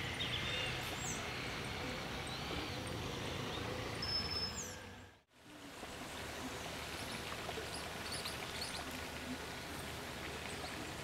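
Outdoor ambience of steady background noise with birds chirping. It fades briefly to silence about five seconds in, then returns with scattered short chirps.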